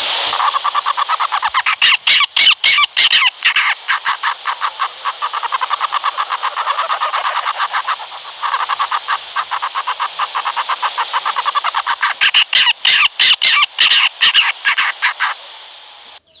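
An owl calling in a long, rapid pulsing chatter, a fast train of harsh notes that runs on with a short break partway through and grows stronger in places before fading near the end.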